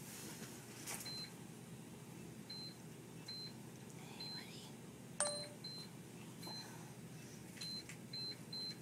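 Hospital bedside monitor giving short, high beeps, about ten at uneven intervals of roughly a second, over a steady room hum, with one sharp click about five seconds in.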